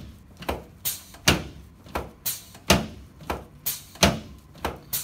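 A quick series of sharp knocks on a chiropractic treatment table during an adjustment, about two or three a second and uneven in strength.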